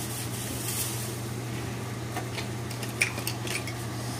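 A few light clinks of cookware on a gas stove, the loudest about three seconds in, over a steady low hum.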